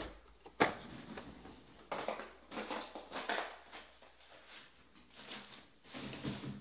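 Trading-card pack wrappers crinkling and rustling as packs are handled, in several short bursts, with a sharp knock about half a second in.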